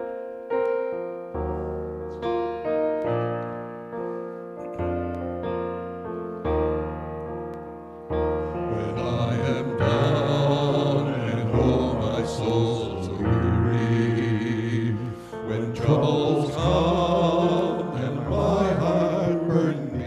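An instrumental introduction of separate, ringing notes. About eight and a half seconds in, a group of men's voices joins, singing a slow song together over the accompaniment.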